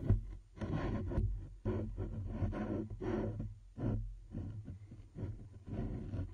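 Muffled underwater sloshing and rushing of water moving against the camera, coming in uneven surges about twice a second.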